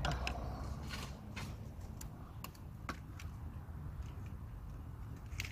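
Pliers working at a plastic coolant hose connector in an engine bay, making scattered small clicks and taps as the hose is worked loose, over a low rumble.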